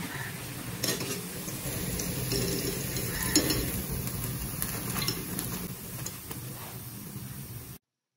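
Oil sizzling as potato-semolina donuts deep-fry in a steel pan, with a few sharp metallic clinks and scrapes of a wire spider skimmer against the pan as the donuts are lifted out. The sound cuts off suddenly near the end.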